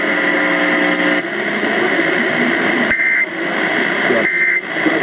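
Emergency Alert System end-of-message data bursts received over the radio: short, harsh two-tone digital squawks, two of them about a second apart in the second half, signalling that the severe thunderstorm warning has ended. A low steady buzzing tone comes first, for about a second, with noisy radio reception in the gaps.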